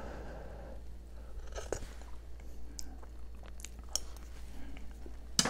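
Mouth noises of a man tasting gravy off a spoon: faint smacking and small clicks of the lips and tongue, with a sharper click near the end, picked up close by a clip-on microphone.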